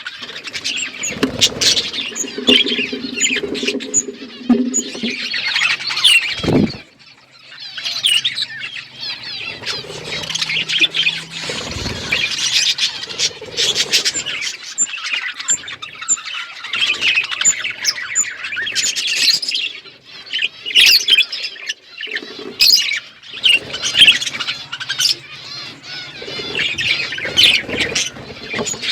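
A flock of budgerigars chirping all at once, many short high calls overlapping continuously, with a brief lull about seven seconds in.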